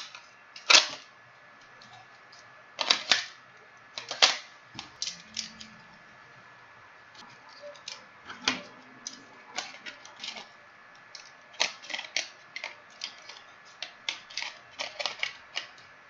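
Irregular sharp clicks and plastic clacks as a computer mouse is handled and taken apart, some loud, most light, with a faint steady high tone underneath.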